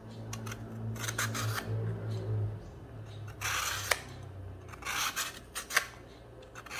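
Sharp vegetable peeler scraping along the flesh of a half coconut in several short strokes, shaving off thin coconut ribbons.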